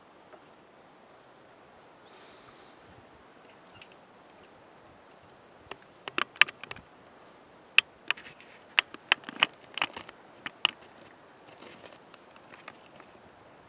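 A quick, irregular run of about a dozen sharp clicks and taps close to the microphone, starting about six seconds in and stopping about five seconds later, over a faint steady hiss.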